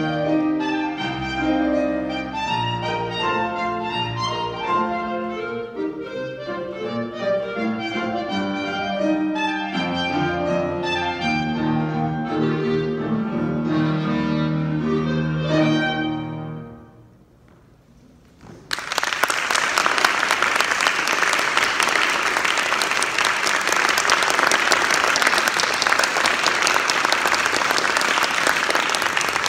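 Clarinet and piano playing the closing bars of a classical piece, which ends a bit over halfway through. After a short pause, audience applause breaks out, louder than the music.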